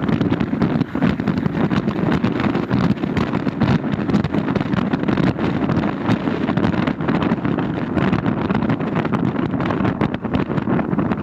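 Wind buffeting the microphone over a steady low rumble, as when filming from a moving vehicle.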